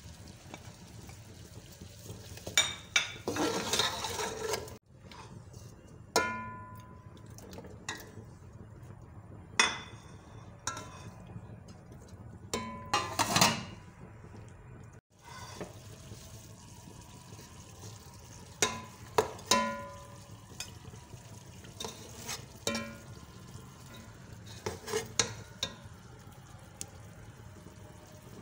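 A metal spoon stirring and scraping chicken pieces in a metal cooking pot, with sharp metal-on-metal clinks and clanks that ring briefly and a faint frying sizzle underneath.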